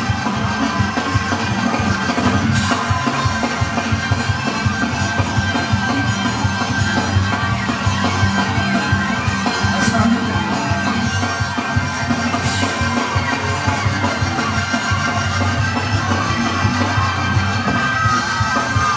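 Church band playing loud up-tempo praise music with a fast, driving beat, the congregation shouting and singing along.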